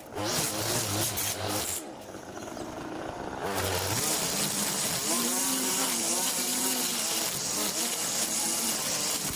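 String trimmer running at high speed, its line cutting through long grass; it eases off about two seconds in and speeds back up about four seconds in.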